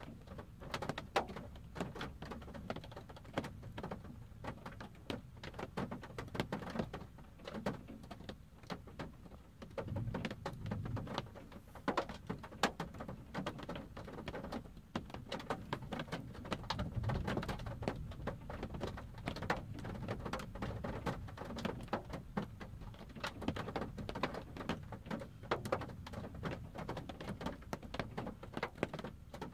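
Rain pattering on a car's windshield and roof, heard from inside the parked car as a dense, irregular run of small taps. A soft low rumble swells under it twice.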